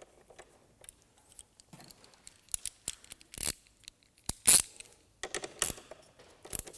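Metal hand tools clicking and clinking: faint ticks at first as a nut is tightened onto a fuse-box terminal post with a nut driver, then a run of sharper clinks as tools are handled, the loudest about four and a half seconds in.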